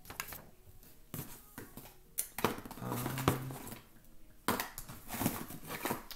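Plastic K-cup pods being rummaged through and handled in a cardboard box: irregular clicks, knocks and rustles.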